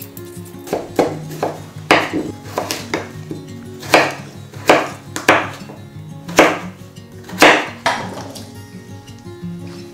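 Chef's knife cutting through raw potato onto a wooden cutting board: about a dozen sharp knocks at an uneven pace, with the loudest near the middle.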